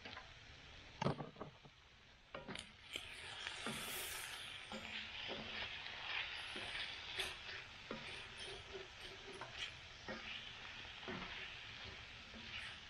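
Sausage frying in a cast iron pan over a camp stove. A few sharp knocks come in the first couple of seconds, then a steady sizzle sets in about three seconds in, with scattered pops.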